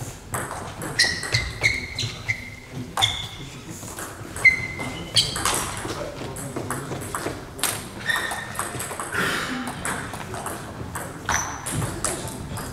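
Table tennis balls clicking irregularly off tables and bats around a sports hall, with several short high-pitched pings among the clicks.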